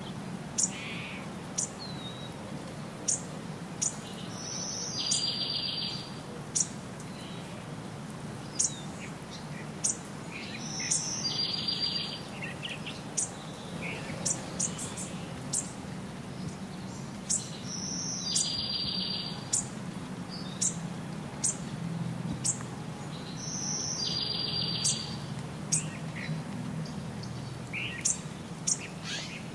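Small birds chirping: sharp high chirps every second or two, with a short song phrase repeated about every six seconds, over a low steady rumble.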